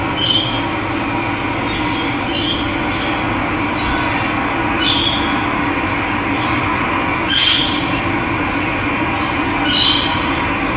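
Steady rush of running water with a bird calling five times over it, a short call about every two and a half seconds, the fourth the loudest.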